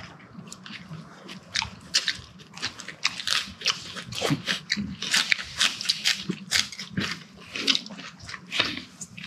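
A person chewing a big mouthful of a lettuce wrap with spicy pork and kimchi: many short, sharp crunches at an irregular pace.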